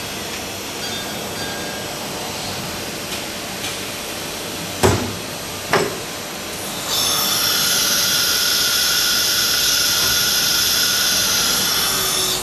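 CNC router's spindle and disc automatic tool changer during a tool change: two sharp pneumatic clunks about a second apart near the middle, then a louder steady hissing whine for about five seconds that cuts off suddenly near the end.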